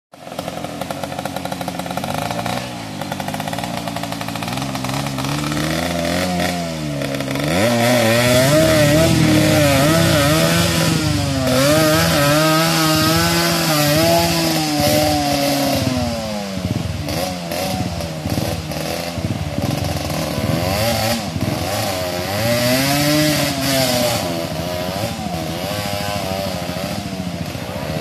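Dirt bike engine revving up and down in repeated swells as it is ridden through a rocky stream, with rushing water and splashing underneath. The revs climb about eight seconds in and stay high for several seconds, then rise again near the end.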